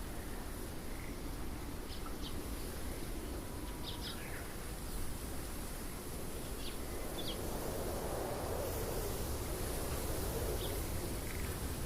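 Outdoor ambience: a few short, high bird chirps scattered over steady background noise.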